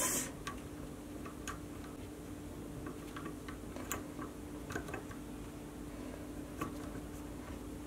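Faint, scattered light ticks and rustles of paracord being fed on a metal paracord needle through tight cow's hitch knots, over a low steady hum.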